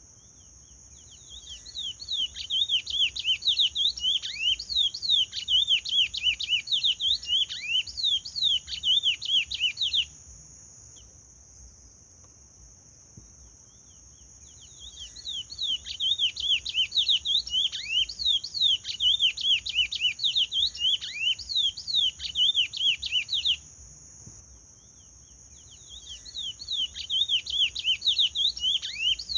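A chestnut-bellied seed finch (curió) singing in the paraense song style. It sings fast runs of loud, swooping whistled notes in three long phrases, pausing a few seconds between them, over a steady high hiss.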